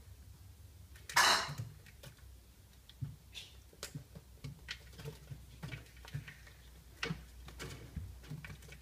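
A pet parrot bathing, with a short, loud flurry of wing-flapping and splashing water about a second in, then scattered light taps and splashes.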